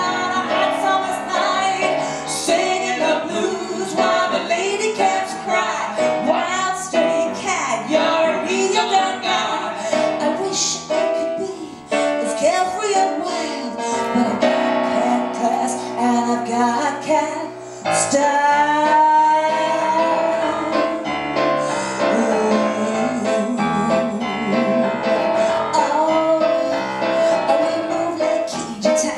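A woman singing live into a microphone, accompanied by a grand piano, with sliding notes in the voice about two-thirds of the way through.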